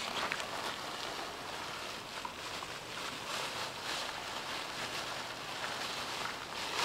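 Shallow stream water running with a steady rushing, trickling noise.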